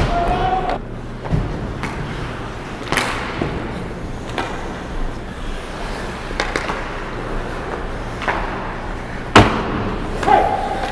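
Ice hockey play around the goal: skate blades scraping the ice, sticks clacking, and sharp puck or stick impacts, the loudest right at the start and another about nine seconds in.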